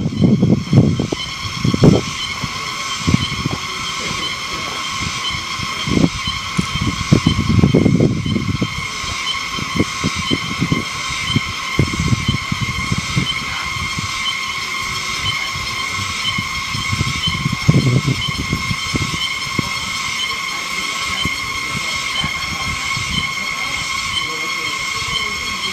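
Cicadas droning in a continuous high, steady whine with a slight regular pulse. Gusts of wind buffet the microphone now and then, strongest near the start, about a third of the way in and around two-thirds through.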